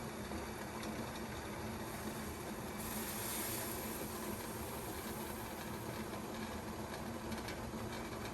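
Kettle boiling: a steady hiss of water at the boil with a low hum underneath and faint ticks, the high hiss of steam swelling louder for about a second around three seconds in.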